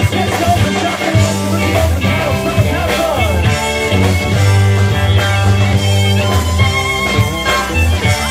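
Live band playing: drum kit and guitars, with a sliding lead line a few seconds in.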